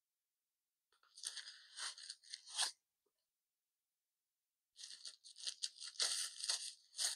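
Thin plastic wrapping crinkling and rustling as a small guitar pedal is pulled from its cardboard box and unwrapped by hand. It comes in two bursts, a short one about a second in and a longer one from about five seconds in.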